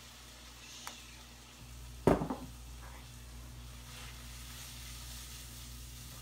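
Seasoned food sizzling in a hot frying pan, with a sharp knock and a short rattle about two seconds in.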